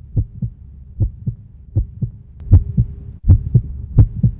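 Low double thumps in a steady heartbeat rhythm, about one pair every three-quarters of a second, growing louder about halfway through.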